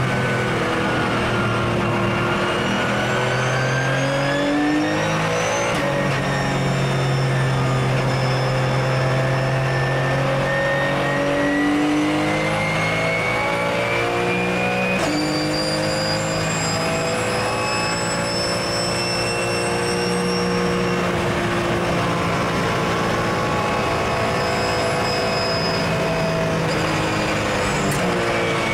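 Porsche 997 GT3 Cup's flat-six engine heard from inside the cabin under way, its note rising and falling steadily with sudden jumps in pitch at gear changes about six and fifteen seconds in.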